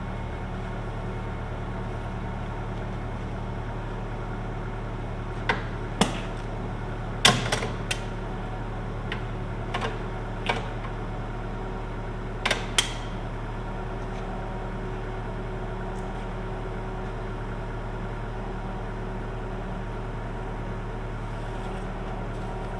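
Sharp metallic knocks and clanks, about ten of them in the middle of the stretch with the loudest about seven seconds in, as a heavy Centurion tank clutch assembly hanging from a lifting jig is turned on its end and handled over a steel bench. A steady low hum runs underneath.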